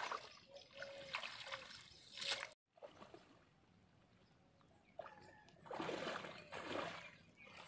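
Shallow water splashing and trickling as a fishing net is worked by hand in knee-deep water. The sound cuts off abruptly about two and a half seconds in, goes quiet, then uneven sloshing and splashing comes back from about five seconds in.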